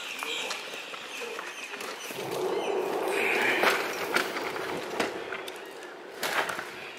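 Footsteps on sand, with scattered sharp clicks and knocks from carried fishing rods and gear.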